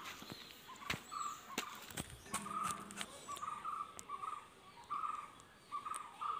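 A bird giving short, harsh calls over and over, a few each second, with several sharp clicks between them.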